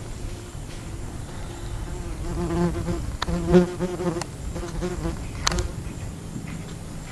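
A flying insect buzzing close past the microphone for about two seconds, its drone wavering and breaking up as it passes.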